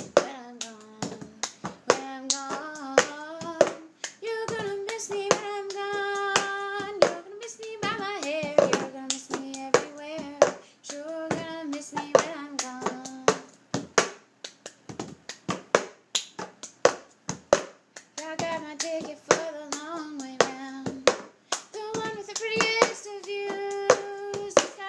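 The cup-game rhythm: hand claps and a blue plastic cup slapped, lifted and tapped down on a tabletop in a steady repeating pattern. A woman's voice carries the tune over it in long held notes, with no clear words.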